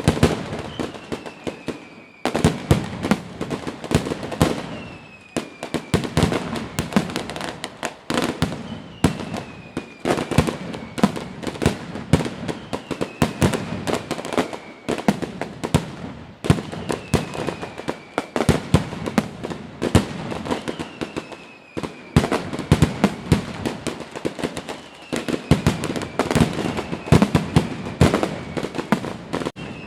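Fireworks display: a dense, continuous barrage of bangs, pops and crackles, with a short falling whistle recurring about every four seconds.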